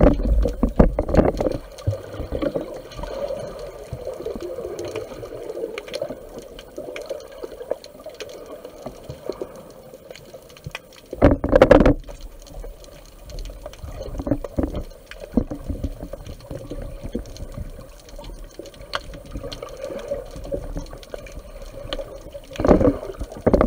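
Underwater sound from an action camera in its waterproof housing: muffled water rushing and bubbling around the case, with three louder surges of water, at the start, about halfway through and just before the end.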